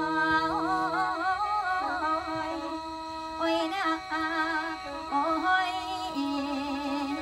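Khaen, the Isan bamboo free-reed mouth organ, playing a lam melody over a steady drone, with ornamented, wavering notes.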